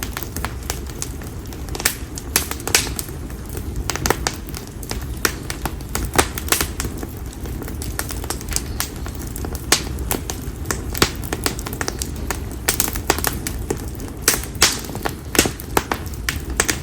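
Konara oak firewood burning in an open campfire, crackling with many irregular sharp pops over a steady low rumble of the flames.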